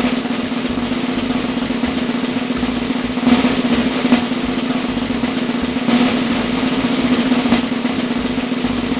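Drum kit's snare drum played in a continuous roll, with a few louder accents along the way.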